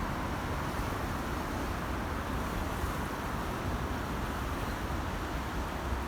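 Floodwater of a river swollen by a typhoon rushing past in a steady, tremendous roar.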